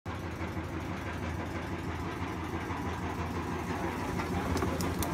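Small boat engine idling steadily with an even low throb. A few sharp clicks near the end.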